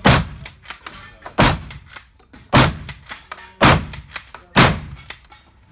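Five rifle shots fired at a steady pace about a second apart in an indoor shooting range, each with a short echo, and small clicks between them.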